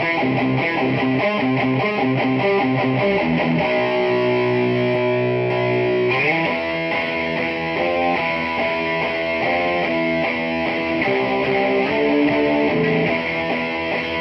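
Electric guitar played through a Peavey 6505+ combo amp, with changing chords and notes. One chord is held for about two seconds partway through before the playing picks up again.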